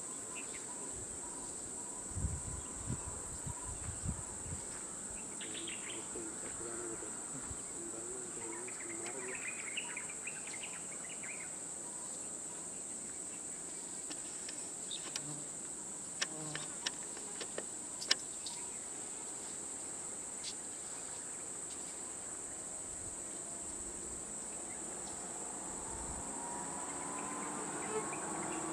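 Steady high-pitched drone of insects, with a few brief bird chirps and a handful of sharp clicks midway. Near the end, a rising engine tone of an approaching vehicle grows louder.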